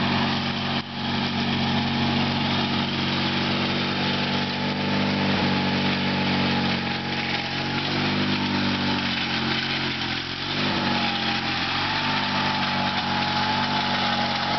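1978 Sears GT/19.9 garden tractor running steadily while mowing, its engine note shifting a little as it turns. A thin steady whine joins the engine sound a little past halfway.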